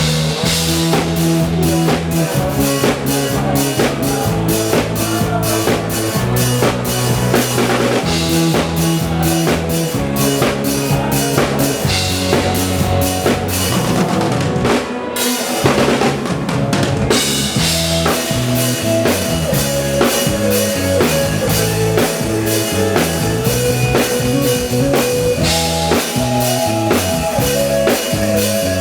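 Live band playing a song, with a steady drum-kit beat of kick, snare and rimshots over bass and keyboard notes, picked up by a camera microphone; the music briefly drops out to a short break about halfway through.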